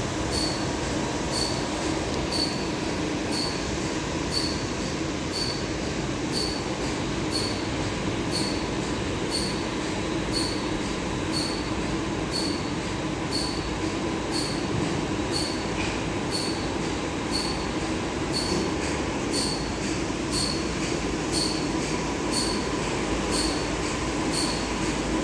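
Automatic car wash heard from inside the car: rotating brushes scrubbing over the windscreen and body amid water spray and a steady machine hum, with a sharp tick repeating about every 0.7 seconds.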